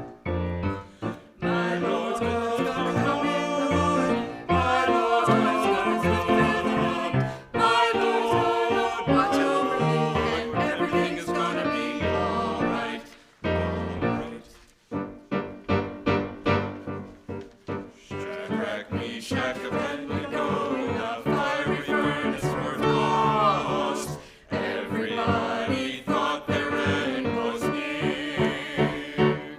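Church choir singing an anthem with piano accompaniment.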